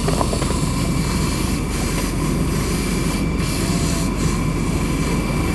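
Fire hose jet spraying water onto charred debris, over the steady drone of a fire pump engine.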